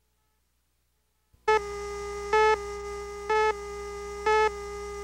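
Countdown leader tone: a steady electronic tone starts about a second and a half in, with a louder beep about once a second, four times, one for each second of the countdown.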